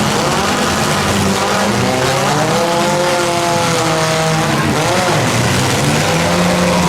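Compact demolition derby cars' engines revving hard over a constant din, the pitch climbing and falling as the cars accelerate and back off.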